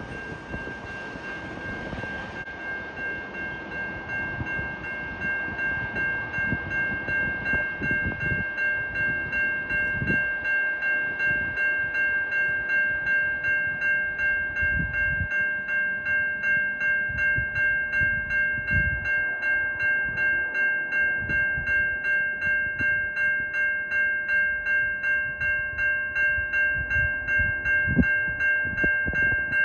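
Railroad level-crossing warning bell ringing, a ringing tone struck in a fast, even rhythm that swells over the first several seconds and then holds steady. A few dull thumps sound under it.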